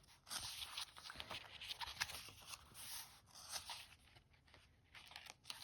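Faint rustling and soft paper handling as the pages of a guidebook are turned, with several light ticks and scrapes.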